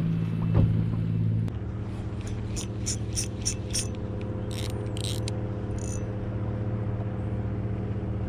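Boat engine running with a steady hum, its note changing about one and a half seconds in. A run of short, sharp high ticks sounds over it in the middle.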